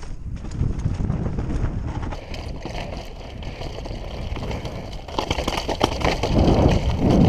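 Downhill mountain bike rolling fast down a dirt and loose-stone trail: tyres rumbling over the ground, the bike rattling over stones, and wind buffeting the microphone. The rattle and rumble grow louder about five seconds in.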